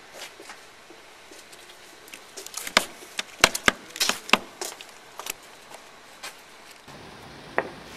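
A run of sharp knocks and taps, clustered in the middle with a few scattered later: a live fish slapping and flapping against a towel-covered table as it is held down.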